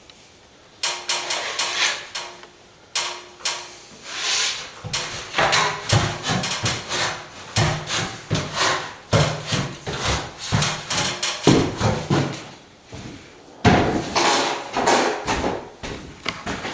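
Repeated hand-tool strokes on plaster, scraping and knocking about two a second in irregular runs, with a brief pause near the middle.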